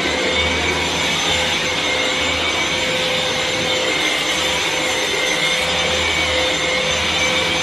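Vax cordless stick vacuum cleaner running steadily: a constant motor whine over the rush of air, with a low rumble that comes and goes.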